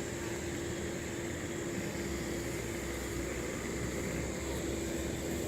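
Electric blower fan of an inflatable dancing skeleton running steadily with a constant hum, filling the inflatable with air.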